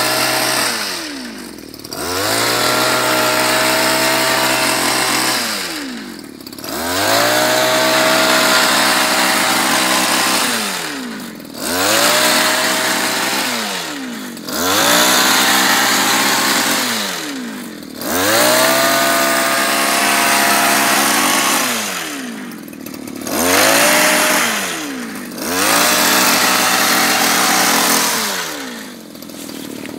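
Small petrol engine of a handheld tea harvesting shear with leaf tray, cutting across tea bushes. It revs up, holds high for a few seconds and drops back toward idle, over and over, about seven times.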